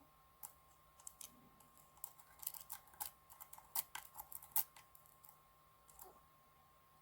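Short hook pick clicking against the spool pins inside a DOM IX Saturn lock held in a false set: a run of sharp, irregular metallic clicks, thickest and loudest in the middle.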